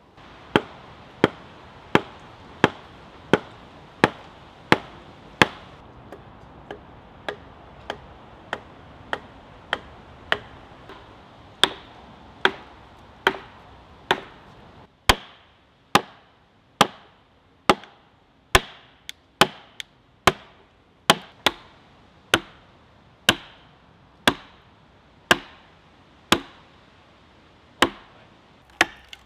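Repeated sharp knocks of axes striking wood, about one a second, with a run of lighter taps in between. Birch wedges are being chopped to shape, then wooden wedges are driven into a cedar log to split it.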